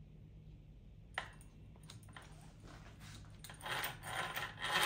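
Light clicks and metallic rattling of small RC drivetrain parts being handled as the gears go on. One sharp click about a second in, then busier clinking from about three and a half seconds in.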